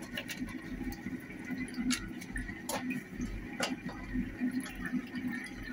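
Whole spices (cinnamon, cardamom, bay leaves) frying in hot oil in a pan: a faint sizzle with a few sharp pops near the middle.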